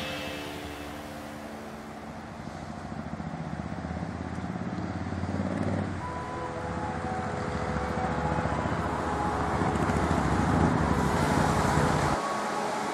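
Road traffic: cars driving along a street, growing louder as they approach and pass. Near the end it cuts to the steady rush of water over a river weir.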